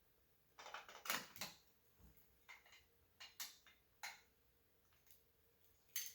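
Small parts of a scale model crane being handled: a quick cluster of light clicks and rattles about half a second in, then scattered single clicks, with a sharper click near the end.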